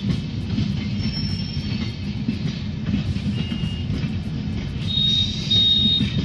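Passenger train coaches rolling past on the tracks with a steady low rumble, and brief high-pitched wheel squeals, the loudest one about five seconds in.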